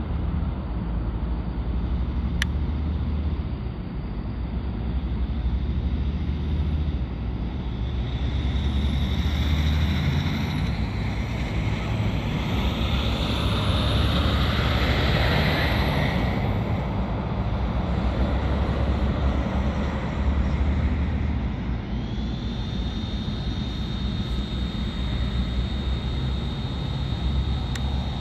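Steady rumble of an airplane's engines and rushing air, heard from inside the cabin during the climb after takeoff. A steady high whine comes in about three-quarters of the way through.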